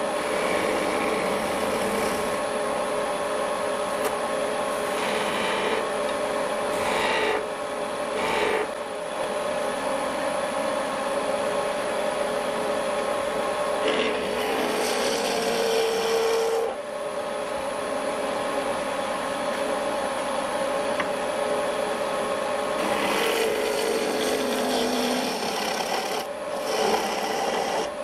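Wood lathe running with a steady hum while a skew chisel cuts the spinning wooden blank. The scraping cutting noise comes and goes in several passes, strongest about halfway through and near the end.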